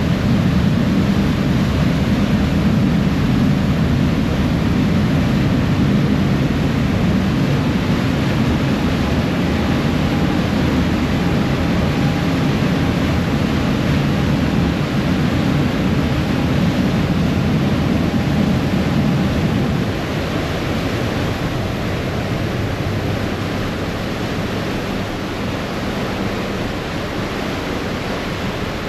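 Ferry's engines running steadily with the rush and splash of its wake churning behind the stern; the low engine rumble eases off about two-thirds of the way through.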